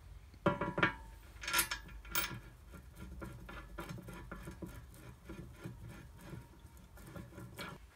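Metal swivel castor clinking against the steel frame a few sharp times, then a run of light clicks and rattles as it is turned and screwed into the frame.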